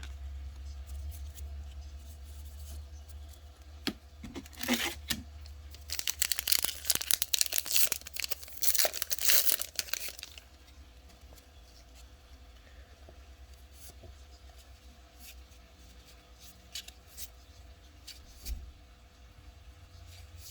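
A foil trading-card pack wrapper (2020 Topps Allen & Ginter) being torn open and crinkled, in a run of loud bursts from about four to ten seconds in, then only faint light clicks.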